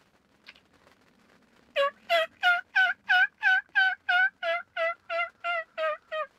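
Turkey box call run as a series of hen yelps to call in a tom: about fourteen evenly spaced notes, about three a second, starting almost two seconds in.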